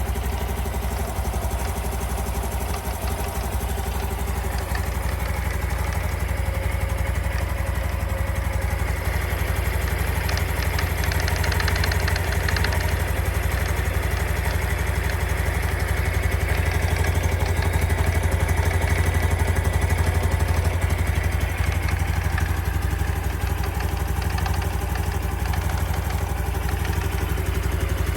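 Honda Super Cub C125's air-cooled single-cylinder engine idling steadily with a light 'kata-kata-kata' rattle, an abnormal noise that the owner hears whenever the engine has not just come off a ride.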